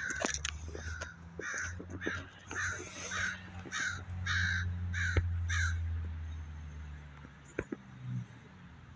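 A crow cawing over and over, about two caws a second, falling silent about two-thirds of the way through. Wind rumbles on the microphone underneath.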